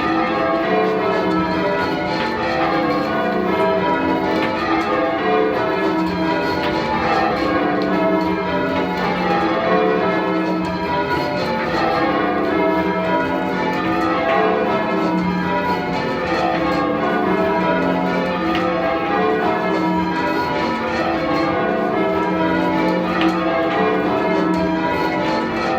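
A ring of ten church bells, tenor 18½ cwt in E, rung in call changes: a continuous, even stream of overlapping bell strokes.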